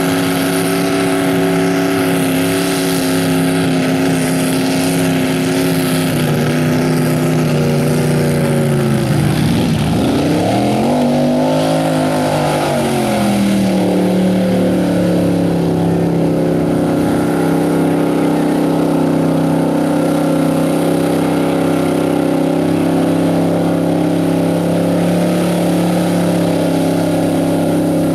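Mega truck engine held at high revs while the truck churns through mud. About nine seconds in the revs fall away sharply, climb back over the next few seconds, and then hold steady.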